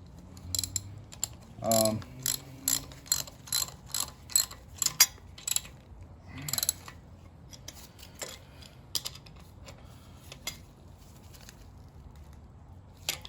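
Ratchet wrench clicking in a run of sharp clicks for the first five seconds or so, then quieter handling and a few more clicks about ten seconds in.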